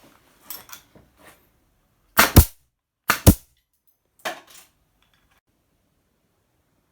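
Makute pneumatic nail gun firing nails: two loud, sharp shots about a second apart, with lighter clicks before them and a softer knock after.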